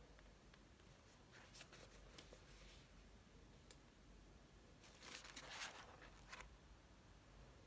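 Near silence in a small room, with a few faint clicks and a soft rustle of handling noise about five seconds in.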